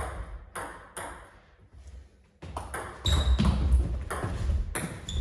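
Table tennis ball clicking sharply off the table and bats: a few taps while the server readies, a short lull, then a quick rally from about two and a half seconds in, with low thuds of footwork on the wooden floor.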